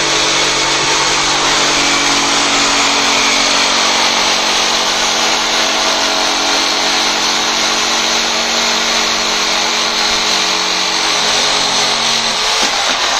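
Black+Decker electric jigsaw cutting through plywood: a steady motor hum under the rasp of the reciprocating blade in the wood. The motor tone drops out near the end.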